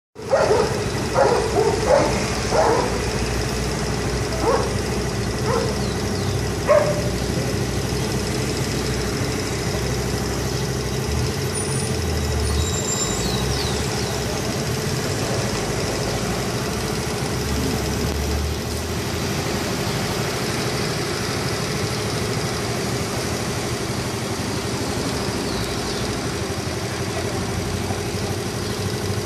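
Stray dogs barking: a quick run of barks in the first three seconds and a few more by about seven seconds in. Under and after the barks runs the steady noise of street traffic and engines.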